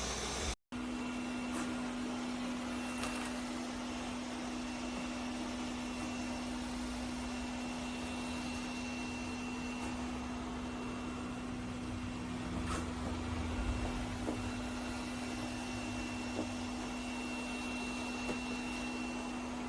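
Eureka E20 Plus robot vacuum running: a steady motor hum with hiss and a faint high whine that comes and goes, after a brief cut to silence about half a second in.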